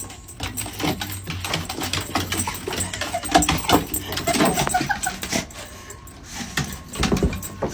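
A dog vocalising in a series of short pitched sounds, mixed with quick clicking and scuffling noises.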